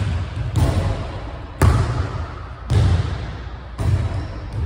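Basketball hitting the hardwood gym floor and the hoop, about six sharp hits at roughly one a second in an uneven rhythm, each echoing in the large hall.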